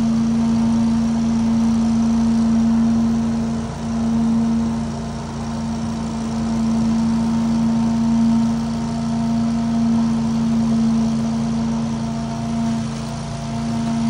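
Engine running steadily at a constant speed, with a strong, even hum and a slight rise and fall in loudness.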